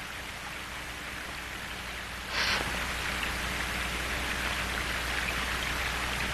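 Steady rain, an even hiss that gets a little louder about two seconds in, with a faint low hum beneath it.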